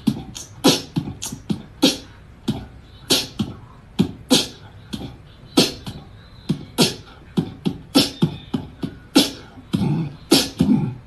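A rapid, irregular series of sharp pops and clicks, about two to three a second.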